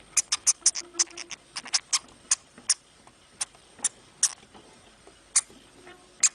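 A small pet rodent making a string of short, sharp, high clicks or squeaks, irregularly spaced: several in quick succession in the first two seconds, then sparser.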